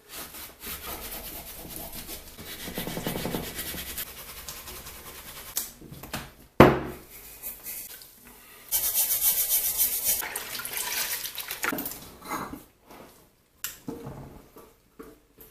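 A rag scrubbing WD-40 and grime off a metal vise in uneven bursts of rubbing strokes, with one sharp knock midway through.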